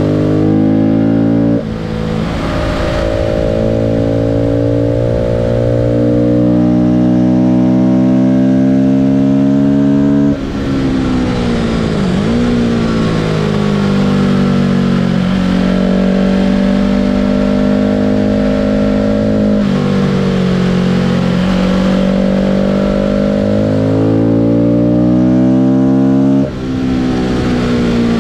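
A vehicle's engine under steady load on a race-circuit lap. Its pitch climbs slowly through long pulls and drops suddenly a few times, as at gear changes or lifts, with one brief dip and recovery in between.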